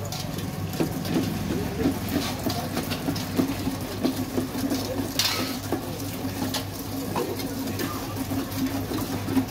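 Wooden churning rods working yogurt in metal lassi pots: a quick, uneven run of wet sloshing and knocking against the metal, over a steady low hum.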